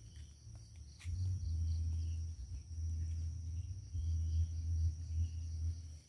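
Low rumbling gusts of wind buffeting the microphone, starting about a second in, over a faint steady high drone of insects.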